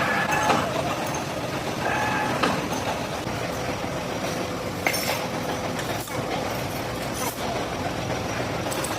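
Machine-tool machinery running steadily with a continuous hum. Short higher tones sound near the start and again about two seconds in, and a few sharp clicks come around five, six and seven seconds in.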